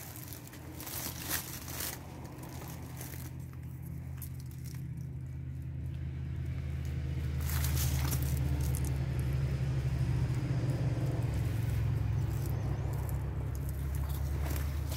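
Cedar branches rustling close by in the first two seconds and again about halfway through, over a steady low drone that grows louder about halfway through and holds.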